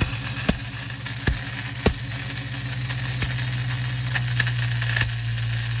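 Ford Mustang Bullitt's 4.6 L V8 idling with a metallic noise from the bellhousing area and a few irregular sharp clicks. The noise comes from a starter that is not fully disengaging, its pinion dragging on the flywheel.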